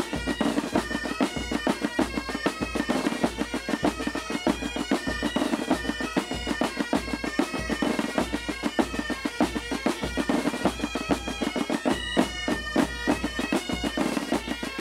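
Bagpipe music: a bagpipe melody over a steady drum beat.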